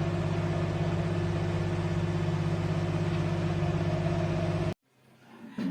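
Orbegozo MIG 2130 microwave oven running with a steady low hum, the sound its owner singles out as the noise it makes. The hum cuts off suddenly about three-quarters of the way through, and a short knock follows near the end.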